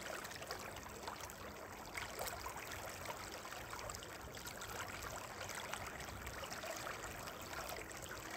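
River water running steadily, with splashing as a hooked trout thrashes at the surface and is scooped into a landing net.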